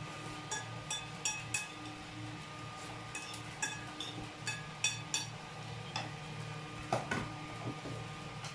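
Cutlery clinking against ceramic plates and bowls during a meal: a dozen or so short, ringing clinks at irregular intervals, then a duller knock about seven seconds in. A steady hum runs underneath.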